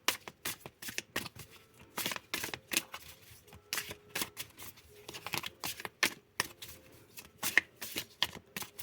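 A deck of tarot cards being shuffled by hand: a quick, irregular run of card-on-card slaps and flicks.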